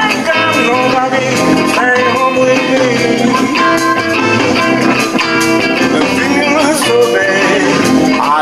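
Live blues: a Telecaster-style electric guitar playing rhythm chords, with a harmonica playing long notes that bend in pitch over it.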